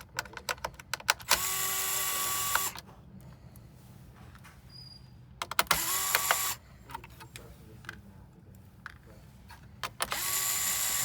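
Electric screwdriver running in three short spells of about a second each, its motor pitch rising quickly and then holding as it backs out screws. Small clicks and taps of handling come between the runs.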